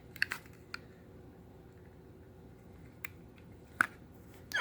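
A few short, sharp plastic clicks from a Bullseye toy horse's battery switch and neck power button being worked, a cluster in the first second, then two more about three and almost four seconds in, with quiet room tone between.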